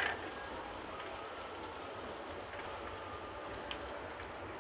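Hot oil sizzling steadily in a wok as chopped garlic, dried red chillies and freshly added green chillies fry, with a couple of faint clicks late on.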